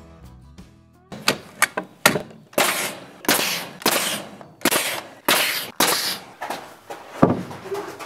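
Nail gun firing into wood boards: about a dozen sharp shots, roughly one every half second, each with a short hiss after it.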